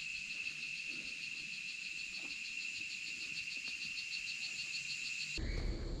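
Rainforest insects calling: a steady high-pitched buzz with a fast pulsing trill above it. It drops out abruptly shortly before the end as a louder, rougher background takes over.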